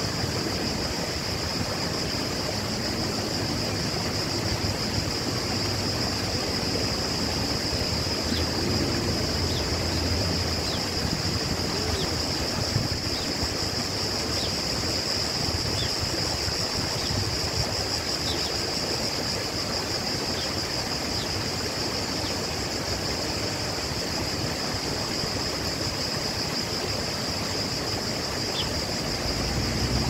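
Water splashing and trickling down the rocks of a rockery waterfall, a steady rushing noise with no change in level. A constant high-pitched hiss or drone sits above it.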